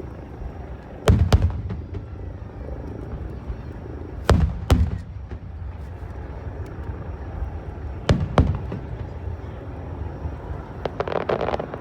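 Aerial fireworks shells bursting: three double booms a few seconds apart, each with a low rumbling echo, then a quick run of crackles near the end.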